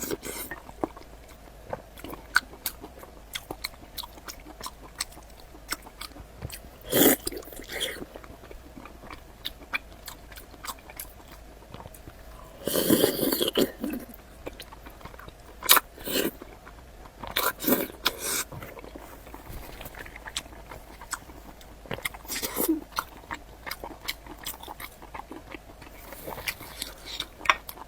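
Close-miked eating: wet mouth clicks and chewing of sliced pork with garlic sauce, broken by several louder biting and slurping bursts, the longest about halfway through.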